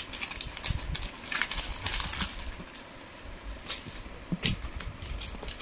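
Rustling of a plastic packet and light clicking and jingling of a gold-finish necklace with pearl beads as it is unpacked and laid out by hand.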